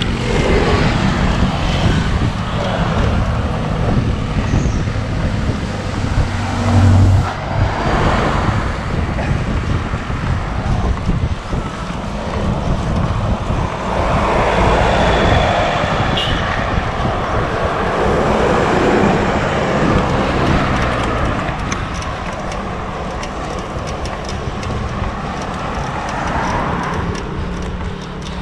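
Road traffic noise: motor vehicles passing close by in several slow swells, over a steady low rumble of wind on the microphone.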